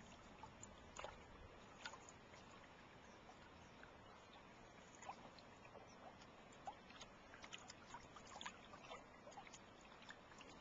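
Near silence with faint, irregular small clicks and drips of water lapping against a canoe hull.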